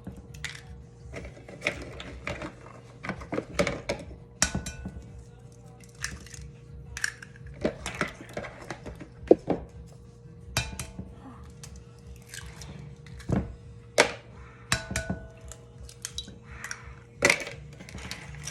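Eggs being cracked one after another against a batter bowl: irregular sharp taps and clicks of shell on bowl and of breaking shell, with a faint steady hum underneath.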